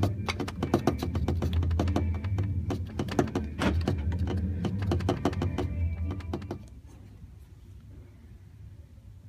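Loose plastic stone-chip guard over the rear trailing arm of an Audi A3 Sportback 8P, shaken by hand and clattering in quick, irregular clicks over a steady low hum; both stop about two-thirds of the way in. A small piece of the guard has broken off, which leaves it enough play to rattle: the source of the car's clatter on bumpy roads.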